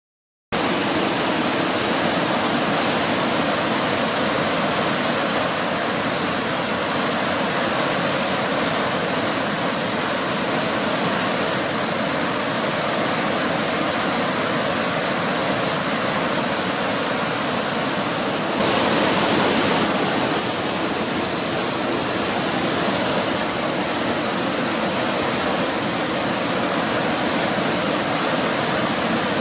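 Waterfall on a mountain brook: water pouring and splashing in a steady, loud rush that cuts in abruptly about half a second in and swells briefly a little over halfway through.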